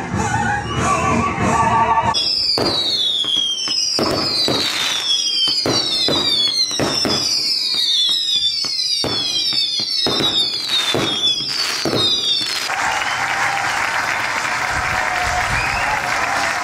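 A rapid run of overlapping whistles, each falling in pitch, with sharp bangs among them, as in a fireworks display. It begins about two seconds in, after a moment of music. About four seconds before the end it gives way to a steady wash of noise.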